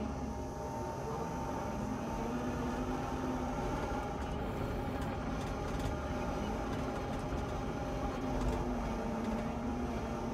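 Kubota skid steer's diesel engine running steadily at working speed, its pitch sagging slightly near the end.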